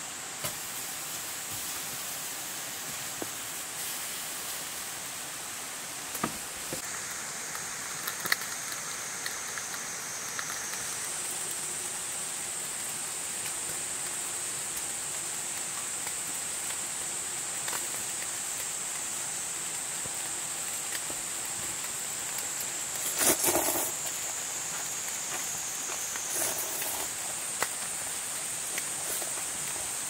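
Meat sizzling on a small charcoal grill, with a steady high hiss and scattered small pops, and a brief louder clatter a little over twenty seconds in.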